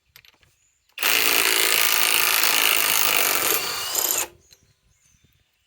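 Cordless right-angle impact wrench hammering steadily for about three seconds as it backs a 4-inch lag screw out of wood. It starts about a second in and stops abruptly.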